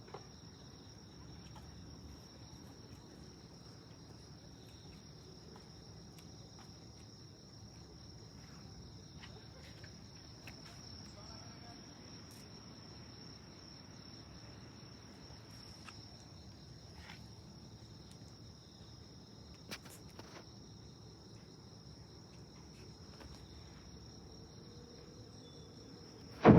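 Steady chorus of night-singing insects, a continuous high trill, over a low background hum, with a few faint clicks. A sudden loud burst cuts in at the very end.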